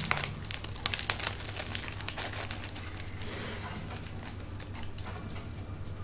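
Plastic wrapper of a Digestive biscuit packet crinkling and crackling as a parrot pecks and pulls at it with its beak, in sharp bursts that are loudest in the first two seconds and come more sparsely after.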